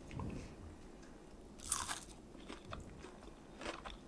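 A person biting into and chewing a piece of fried fish, with a few soft crunches. The clearest crunch comes about two seconds in.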